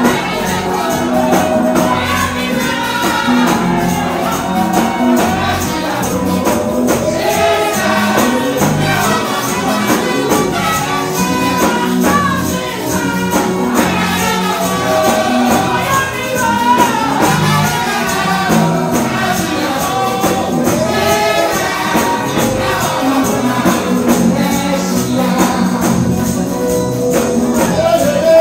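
Gospel praise singing: a choir and a lead singer on microphones over a fast, steady tambourine beat.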